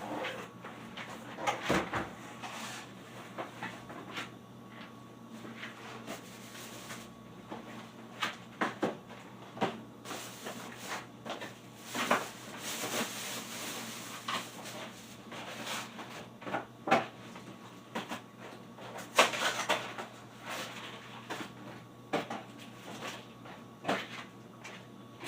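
Irregular knocks, clicks and short scuffs of household things being handled, like cupboard doors and objects set down, over a faint steady hum.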